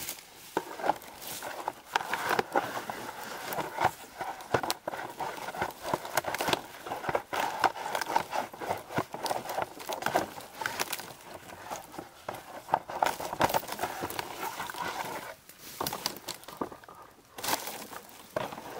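Dry birch bark crackling and rustling as it is pried and peeled from a fallen birch log and handled, mixed with steps in dry leaf litter. A dense run of sharp snaps with a short lull near the end.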